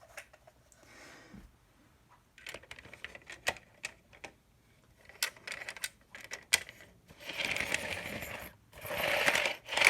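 Light plastic clicks and knocks as a Rivarossi model baggage coach is handled and set on the rails, then a rough whirring rattle for a couple of seconds as the coach is rolled along the track.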